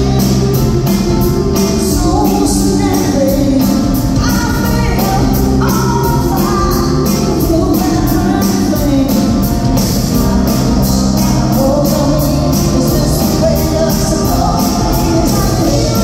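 A live rock band of drums, electric guitars, bass and keyboards playing loudly with a steady beat, with a woman singing lead over it.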